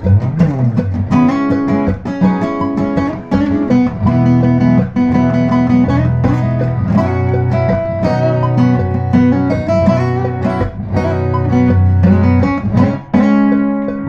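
Acoustic guitar playing solo: a run of changing chords strummed in a steady rhythm.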